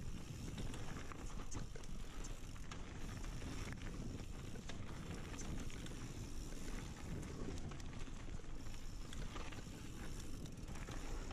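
Mountain bike descending a gravel forest trail at speed: wind buffeting the handlebar camera's microphone, with tyres crunching over stones and the bike rattling and clicking over bumps.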